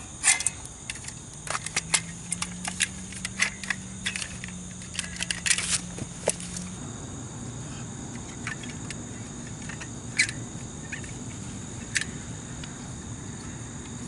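Scattered clicks and taps of a silicone caulk tube and caulking gun being handled, with a faint steady low hum through the first half.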